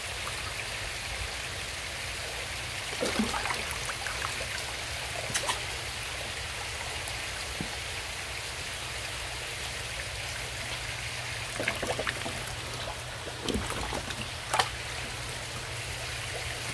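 Koi pond water trickling and splashing steadily, with several short splashes scattered through it, the sharpest a little before the end.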